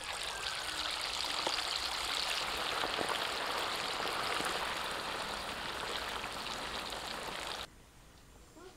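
Marinated prawns sizzling steadily in hot oil in an iron kadai as they go in to deep-fry. The sizzle cuts off abruptly near the end.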